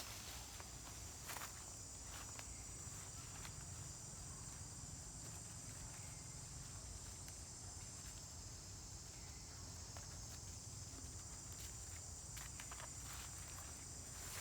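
Faint outdoor ambience: a steady high-pitched insect drone, with scattered light rustles and steps, a few near the start and a cluster near the end.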